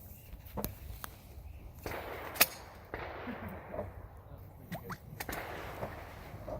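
Pump-action shotgun being loaded and made ready: several sharp metallic clicks and clacks of shells and the action being handled, with rustling in between. The loudest click comes about two and a half seconds in.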